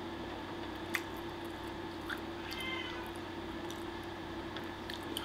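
A pet cat meowing once, a short high call about two and a half seconds in, over a steady low hum, with a light click about a second in.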